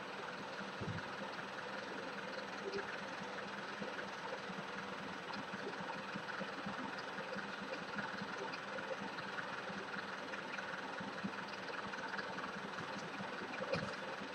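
Parked delivery van's engine idling, a faint steady running sound, with a couple of light knocks, about a second in and near the end.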